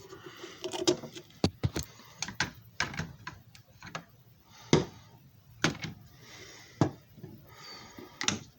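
Irregular clicks and knocks from handling a JFJ Easy Pro disc repair machine and its parts, with softer rubbing between them; about a dozen sharp ones, the loudest about five seconds in.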